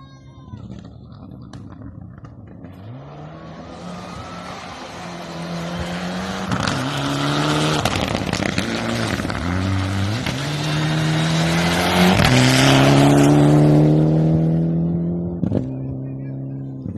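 Rally car engine at full throttle, rising in pitch and dropping sharply at each upshift, several times over, as the car comes closer. It is loudest near the end, then fades as the car passes. A sharp knock or crack follows shortly after the peak.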